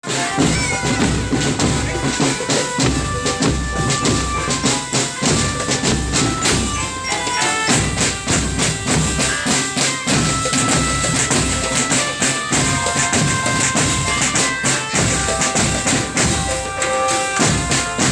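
Marching drum band playing a tune: drums and cymbals keeping a dense beat under a melody of held notes.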